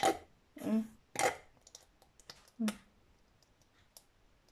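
Close handling noise in a kitchen: a few short muffled bumps in the first three seconds as a sleeve brushes past the microphone, with light clicks of a spoon and blender cup between them.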